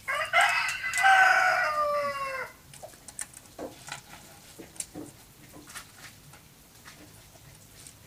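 A rooster crowing once: a call of about two and a half seconds that falls in pitch at the end. Faint clicks and taps follow.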